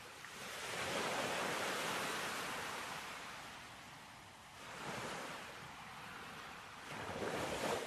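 Sea waves washing in, a steady rush that swells and ebbs three times.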